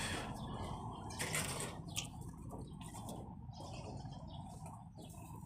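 Rustling handling noises, with a sharp click about two seconds in.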